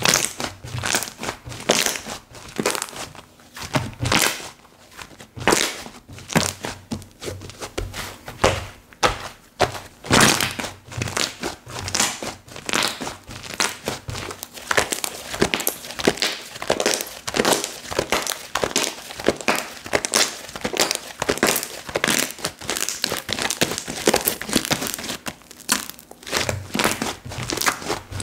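Slime being squished, poked and stretched by hand, making dense, irregular sticky clicks, pops and crackles.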